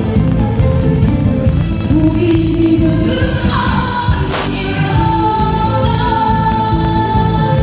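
A woman sings a Korean trot song live over an amplified backing track with drums. A long held note comes in about five seconds in.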